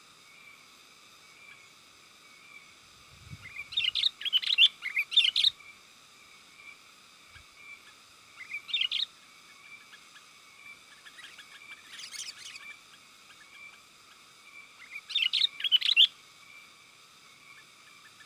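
Sooty-headed bulbul (kutilang) singing in short bursts of quick, bubbly chirps, four phrases spaced a few seconds apart, over a steady faint high hiss.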